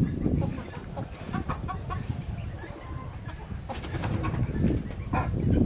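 Birds chirping in short, scattered calls over a steady low rumble on the microphone, with a few sharp clicks about four seconds in.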